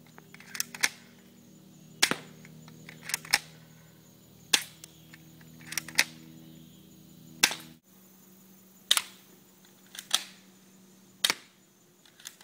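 Airsoft gun firing single shots at the go-kart's armor: about a dozen sharp snaps roughly a second apart, some in quick pairs, over a faint steady hum.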